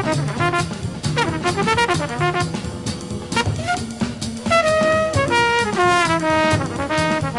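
Jazz recording: a trumpet plays a quick, winding melodic line over a walking bass line and drums.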